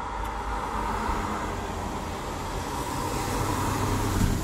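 Sea waves breaking and rushing on the shore in rough water, a continuous rushing noise that builds and peaks near the end.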